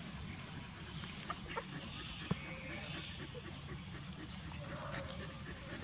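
Newborn puppies suckling from their mother: a few soft clicks and small squeaky animal sounds over a steady low background rumble.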